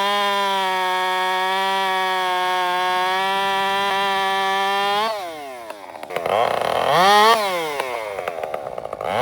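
Two-stroke chainsaw held at a steady full-throttle pitch, then let off about five seconds in so the engine note falls away. It is blipped up and back down once and revs up again at the end.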